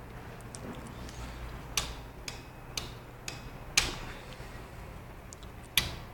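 Plug-in relays on a PLC traffic-light control panel clicking as the program switches the light outputs. There are six sharp clicks: the loudest come about two seconds apart, with softer ones about half a second apart between them, over a low steady hum.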